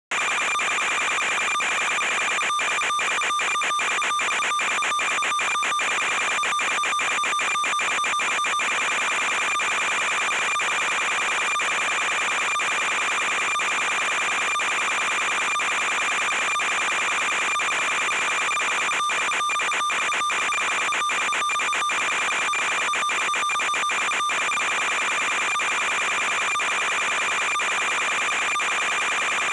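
Steady electronic buzz with a high whine: interference noise on an analog FPV video link's audio channel while the quad's motors are off. It is broken by many brief dropouts.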